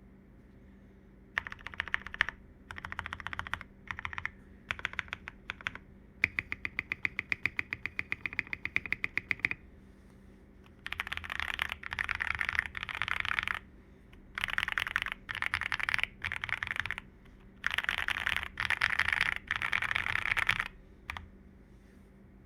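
Typing on a FEKER JJK84 custom mechanical keyboard with lubed Gateron Milky Yellow linear switches and double-shot PBT keycaps, in bursts of fast keystrokes. In the middle there is a run of rapid, evenly spaced strokes, and the second half holds denser, louder bursts of typing.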